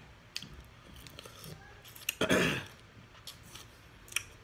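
A person clearing their throat once, a short raspy burst about two seconds in, with a few faint clicks around it.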